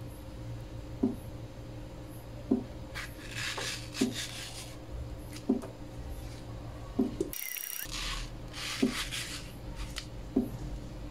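Kitchen knife slicing through ripe mango flesh, with rubbing, scraping sounds about three seconds in and again near the end. A soft knock repeats about every second and a half over a low steady hum.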